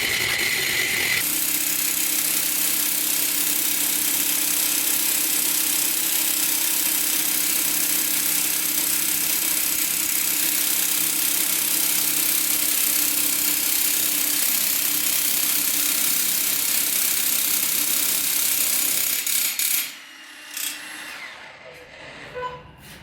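A power tool running steadily with a loud hiss and a low hum. It cuts off abruptly about nineteen seconds in, and a few light clicks and knocks follow.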